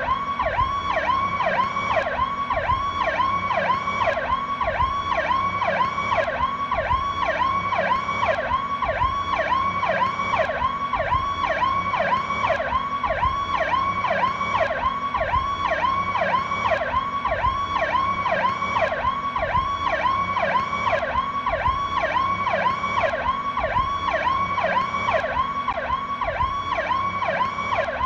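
PowerCall electronic police siren sounding continuously, a fast falling-and-rising wail that repeats about twice a second without a break.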